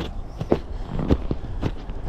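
Footsteps of a hiker's boots on a snow-covered trail, a short crunching stride about twice a second.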